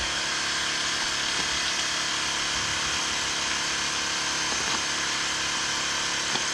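A small electric motor running steadily, a constant even whirr with a thin whine.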